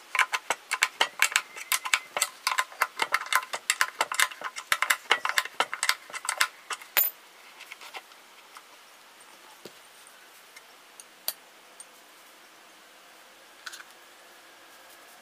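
Rapid, irregular metallic clicking as a bolt is tightened on the speaker cabinet's corner bracket, about five clicks a second, stopping about seven seconds in; after that only a few scattered small clicks of parts being handled.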